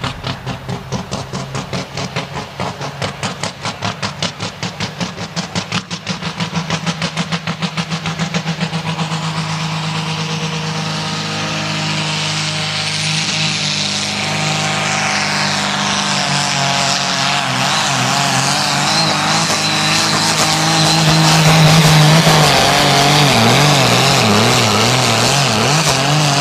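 Turbocharged stock diesel engine of a 3.6-tonne Super Sport pulling tractor running under full load during a pull. A fast throbbing pulse in the first several seconds smooths into a steady engine sound with a high whine rising through the middle, and near the end the engine's pitch wavers up and down.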